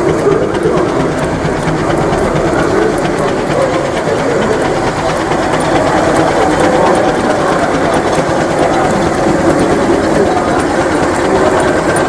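Mamod live-steam model traction engines running, belted to model farm machinery: a steady mechanical running noise with a fast, faint ticking.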